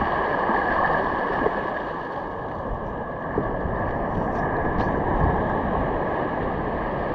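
Ocean surf washing steadily around the shallows, with wind rumbling on the microphone.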